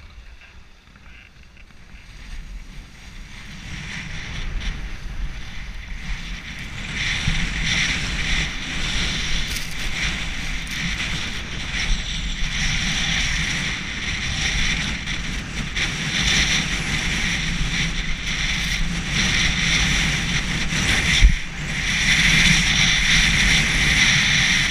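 Skis sliding and scraping over packed, groomed snow at speed, with wind rushing across the microphone; the noise builds from faint to a steady loud hiss and rumble over the first several seconds as the skier picks up speed. A single sharp knock about 21 seconds in.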